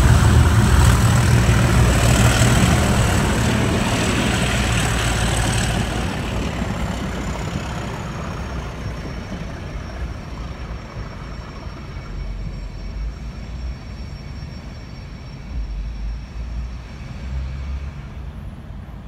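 Class 37 diesel locomotive's English Electric engine pulling Mark 2 carriages away, with the carriages rolling past. A high thin whine sounds over the rumble in the first six seconds, then the whole sound fades steadily as the train draws away.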